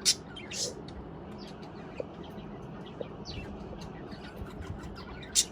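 Budgerigars giving short, high chirps over a steady background hum, with the two loudest calls just after the start and near the end.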